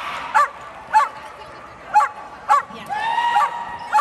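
Dogs barking: about five short, sharp barks half a second to a second apart, with a longer held cry about three seconds in.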